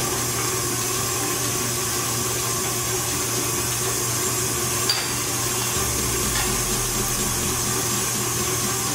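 KitchenAid Artisan stand mixer running steadily, its paddle beating creamed butter and sugar as egg is added: an even motor whir with a low hum. A light click about five seconds in.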